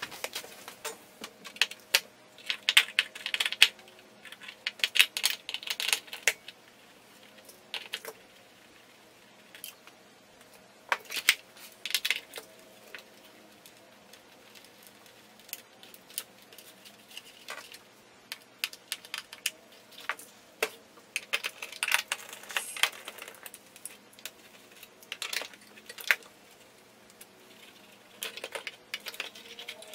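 Clicks, taps and short metallic rattles of a screwdriver and screws as the power supply is unscrewed and lifted out of an ARP Pro/DGX synthesizer's chassis. They come in scattered clusters with quieter gaps between.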